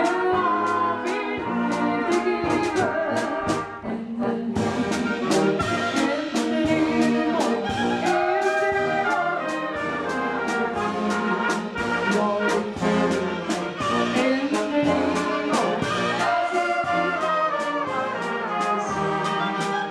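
Bohemian-style brass band (böhmische Blasmusik) playing a tune with a steady beat; the band thins out briefly about four seconds in, then comes back in full.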